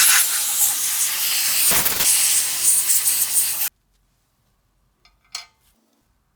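A pressurised spray hissing in one loud continuous blast of about three and a half seconds, cutting off abruptly, as debris is blown out of the camera's shutter mechanism. A short faint click or rub follows about a second and a half later.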